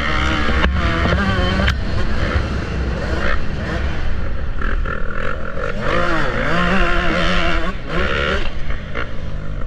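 Motocross bike engines revving up and down in pitch as the riders accelerate and ease off through the corners, over heavy wind rumble on the helmet-mounted camera.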